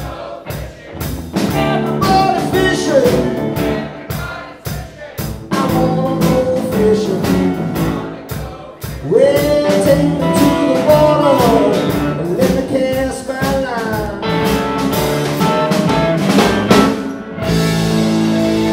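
Live blues band playing: electric guitars, bass guitar and drum kit, with a man singing. Near the end the drums stop and a held chord rings on.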